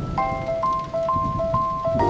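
Background music: a gentle melody rocking back and forth between two notes, about two notes a second.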